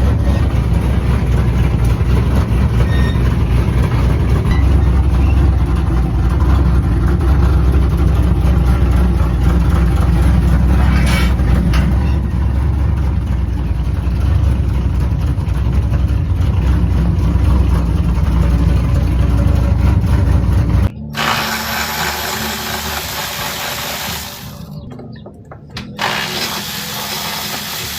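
A truck's 6.0 V8 engine idling steadily, with a small exhaust leak at the flange. It cuts off abruptly about two-thirds of the way through, replaced by a quieter, different sound.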